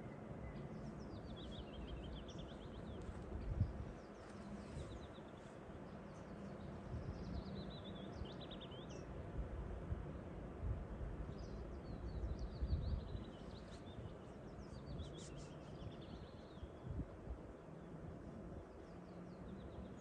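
A songbird singing short phrases of rapid notes that slide downward, repeated every few seconds, over a steady low rumble of outdoor noise.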